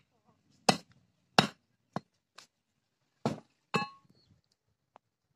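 Heavy cleaver chopping goat foot pieces on a wooden block: four hard chops with a couple of lighter taps between them, the last chop ringing briefly like struck metal.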